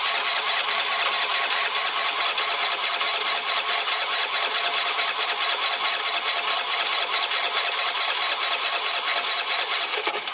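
Piaggio MP3 scooter's electric starter cranking the engine steadily for about ten seconds without it firing, then stopping abruptly. The cranking draws fuel up to a freshly refitted carburettor that has been starved of fuel.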